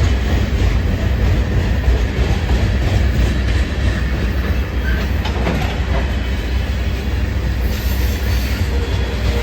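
CSX freight train's cars rolling past, a steady loud rumble of wheels on rail with no horn sounding.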